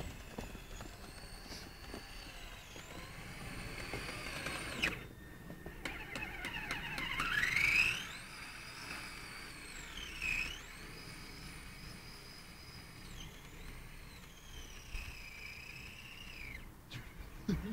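Electric motor and gearbox of a Kyosho Blizzard RC snowcat whining. The pitch rises and falls as the throttle changes, with a sharp rising whine about seven seconds in.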